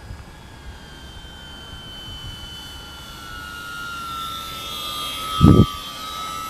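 Electric RC model Cessna 182's brushless motor and propeller whining as it flies by, the whine growing louder and sliding slightly lower in pitch. A short loud low thump about five and a half seconds in.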